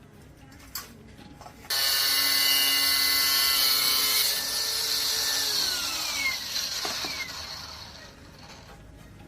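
A small electric motor starts suddenly with a high whine and a strong airy hiss. It runs steadily for a couple of seconds, then is switched off and spins down over a few seconds, its pitch falling.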